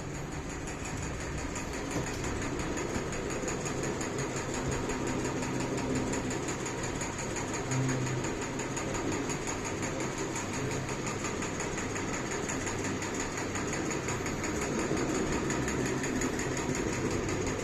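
A small engine running steadily with fast, even firing pulses.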